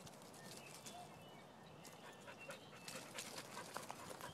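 A dog panting faintly in quick, uneven breaths that grow more frequent and a little louder from about halfway through.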